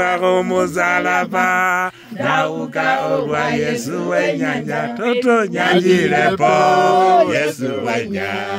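A man chanting unaccompanied, in long held notes with short breaks between phrases.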